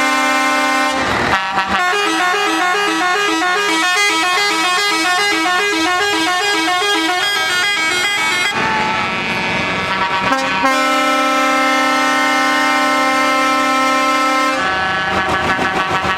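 A truck's multi-note musical horn: a held chord, then a quick tune of stepping notes for several seconds, then another long held chord, and fast repeated notes near the end.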